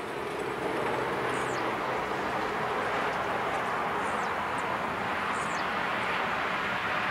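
FedEx Boeing 767-300F's twin turbofan engines on final approach: a steady jet roar that swells over the first second and then holds. Faint bird chirps sound a few times above it.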